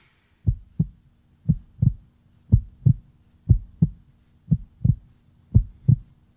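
Suspense heartbeat sound effect: six slow lub-dub double thumps, about one a second, over a low steady hum.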